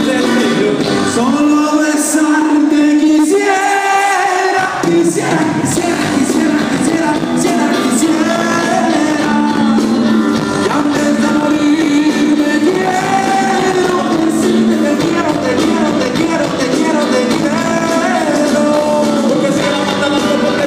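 Live band music with a lead singer, heard from among the audience. The bass drops out for a few seconds near the start, then comes back in.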